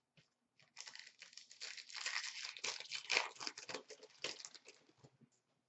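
A foil hockey-card pack being torn open by hand, its wrapper crinkling in a quick run of crackles that starts about a second in and lasts about four seconds.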